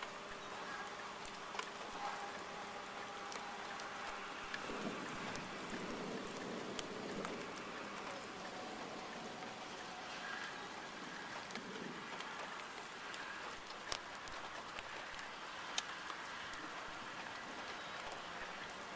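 Steady light rain falling, with a few sharp drops ticking close by now and then.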